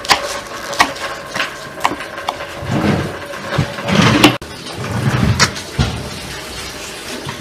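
A kitchen knife chopping greens on a wooden cutting board: scattered sharp knocks of the blade on the wood, with louder rustling scrapes in the middle as the chopped leaves are pushed across the board.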